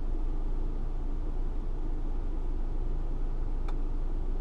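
Steady cabin noise of a 2016 Mercedes C300 coupe idling, its turbocharged 2.0-litre inline-four running with the air conditioning blowing, a low even hum. One faint click about three and a half seconds in.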